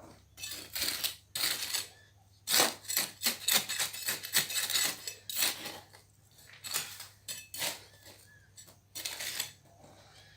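Scraping and digging in the packed dirt of a dirt-box forge with a metal tool, hollowing out the fire pot over the tuyere: a run of uneven gritty scrapes and small clinks.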